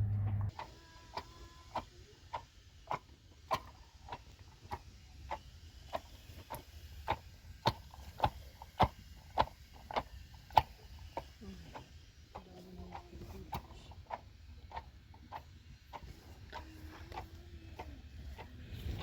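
Sharp ticking knocks repeating at an even pace, a bit under two a second, that fade out after about sixteen seconds.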